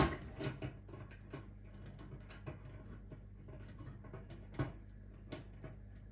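Stainless-steel wire dehydrator racks clicking and clinking as the top rack is worked and hooked onto the stack: scattered sharp clicks, the loudest at the start and about four and a half seconds in. A low steady hum sits underneath.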